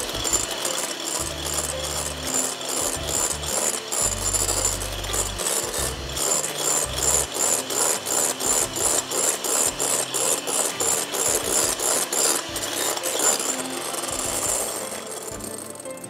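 Egg whites being beaten in a bowl, the beaters scraping against the bowl in a fast, regular rhythm of about three strokes a second. It eases off near the end.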